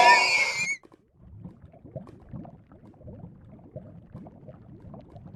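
Music cuts off abruptly under a second in. After that comes faint, irregular stomach gurgling: soft bubbling and rumbling that runs on unevenly.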